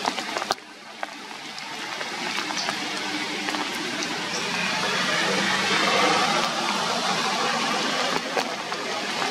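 Steady rain falling on forest leaves and branches, an even hiss that swells over the first few seconds, with a few sharp drip taps.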